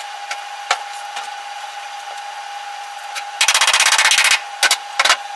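MIG welder laying down plug or tack welds on sheet-metal floor pan: a crackling burst of about a second past the middle, then two short crackling blips, over a faint steady hum.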